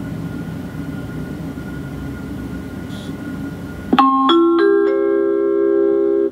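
Steady low background hum, then about four seconds in a four-note rising electronic chime from the public-address system, its notes entering one after another and ringing on together until it cuts off suddenly.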